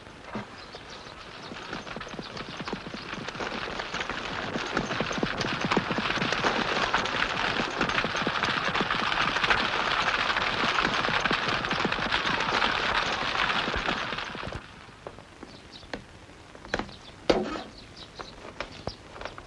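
Horse-drawn carriage clattering: a dense, rapid rattle of hooves and wheels that grows louder, then cuts off about 14 seconds in. A few scattered knocks follow, with one sharp knock near the end.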